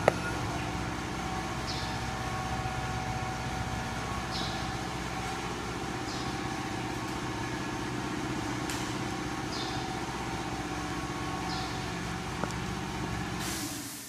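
Acctek 1212 CNC router's spindle running steadily as the bit engraves a stone slab, with short high chirps recurring every second or two. The sound dies away near the end.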